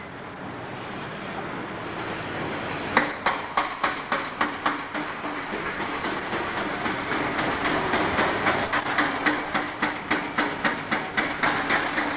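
Trolleybus driving past close by on a city street: a steady run of sharp clicks, several a second, over a rumbling noise. A thin high whine comes in about four seconds in.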